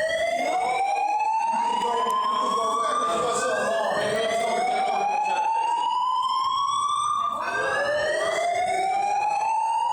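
Building fire alarm voice-evacuation system sounding its slow-whoop tone: a loud rising sweep lasting nearly four seconds that drops back and starts again, heard about three times.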